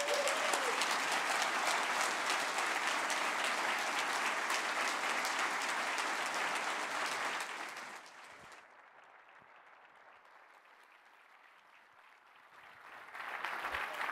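Large audience applauding loudly for about eight seconds, then dying away, with the applause swelling again near the end.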